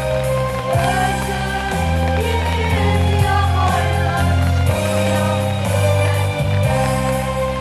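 A song playing: a voice singing over held instrumental chords and a slow-moving bass line.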